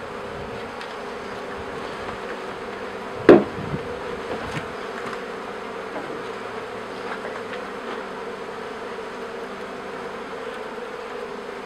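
Steady hum of a newly installed package of honey bees clustered in a wooden top-bar hive. One sharp wooden knock about three seconds in, then a few lighter taps.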